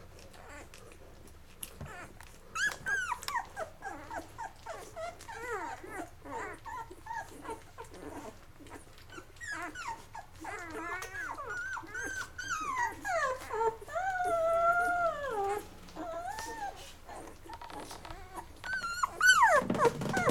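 Eleven-day-old Labrador retriever puppies whimpering and squealing: a string of short, high, falling whines, with a longer whine that dips and wavers a little past halfway and a loud one near the end.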